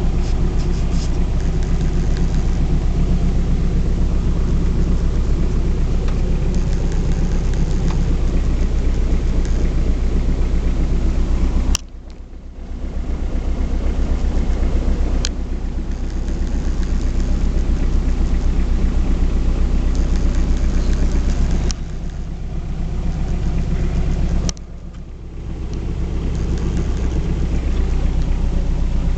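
BMW E36 318tds four-cylinder turbodiesel idling with a steady low rumble. The sound drops suddenly about twelve seconds in and again near twenty-five seconds, building back up over a second or two each time.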